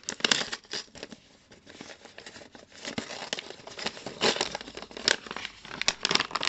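Brown paper bag being crinkled and torn open by hand: irregular crackly rustling, with a quieter spell about a second in and busier handling in the second half.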